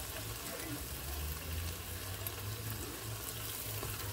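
Onions and plant-based burger patties frying in a nonstick pan: a steady sizzle with faint scattered crackles.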